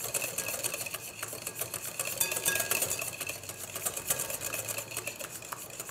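Wire whisk beating egg yolks and olive oil in a glass bowl, its wires ticking rapidly and evenly against the glass as the oil is whisked in to emulsify into mayonnaise.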